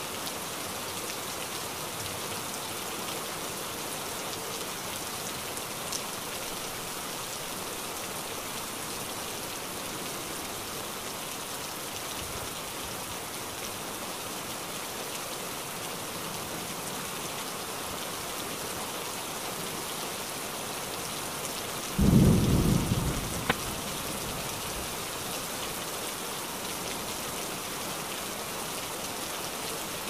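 Steady rain falling, with one sudden clap of thunder about two-thirds of the way through that dies away within a couple of seconds.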